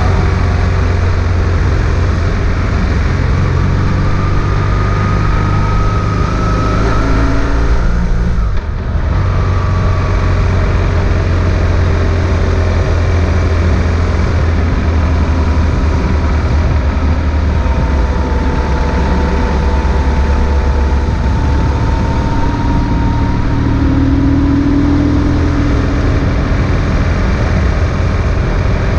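BMW R1150 GS boxer twin engine running at speed, heard on board over steady wind and road noise. The sound briefly dips about eight and a half seconds in, then carries on.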